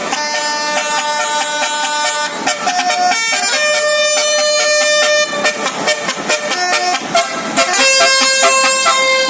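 Tour bus's basuri 'telolet' musical air horn playing held multi-tone notes: three long blasts, each at a different pitch, with short notes between.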